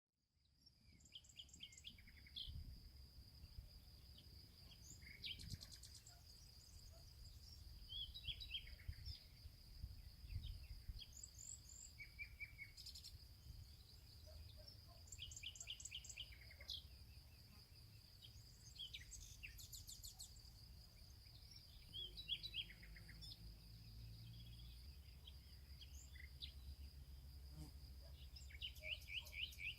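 Faint outdoor ambience: scattered bird chirps over a steady, high-pitched insect drone, with a low rumble underneath.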